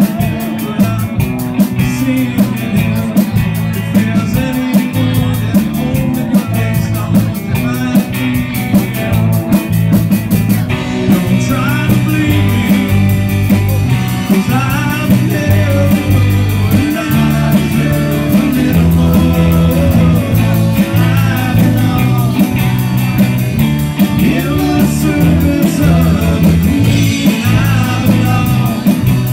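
Live rock band playing loud through a PA: a man singing over electric guitar, bass, keyboard and a drum kit keeping a steady beat.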